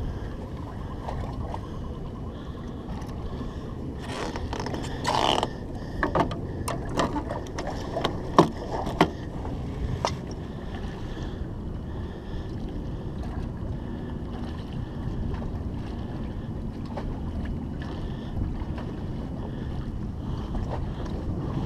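Wind buffeting the microphone over choppy bay water, with water lapping, and a cluster of sharp clicks and knocks between about four and ten seconds in.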